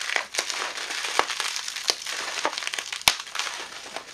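Bubble wrap crinkling and crackling as it is pulled off a small camera lens by hand, with irregular clicks and one loud sharp snap about three seconds in.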